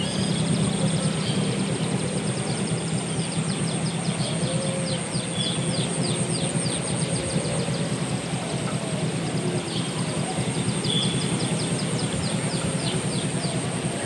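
Rural outdoor ambience: a steady low hum under a constant high-pitched whine, with a bird repeating short, high, falling chirps about three times a second.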